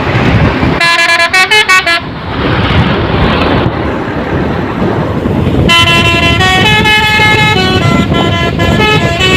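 Fuso truck's telolet horn, a multi-tone musical air horn, playing short stepped bursts of notes about a second in, then after a few seconds of noise a long run of changing notes from about six seconds in.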